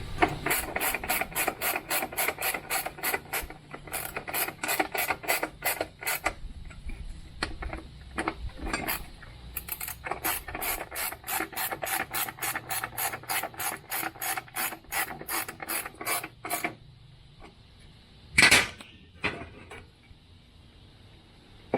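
Ratchet wrench tightening a bolt, rapid even clicking in two long runs with a short break about six seconds in. A single louder clank near the end.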